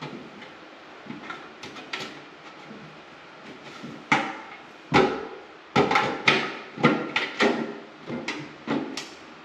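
Wooden boards knocking and clattering as they are handled and fitted: a few light taps, then a quick run of about a dozen sharper knocks in the second half.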